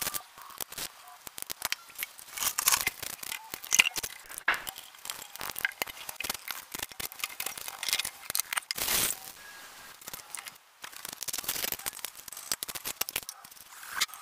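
Hand tools and metal parts on a Ural motorcycle's air-cooled cylinder and head being taken apart: irregular metallic clicks, taps and scraping, with a few louder knocks.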